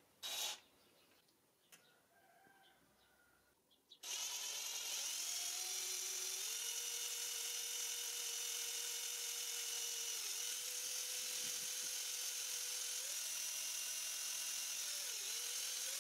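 Electric drill spinning a mixing paddle in a plastic cup of epoxy resin and hardener, stirring in black pigment. The drill starts about four seconds in and runs steadily, its pitch dipping and rising a little as the speed varies.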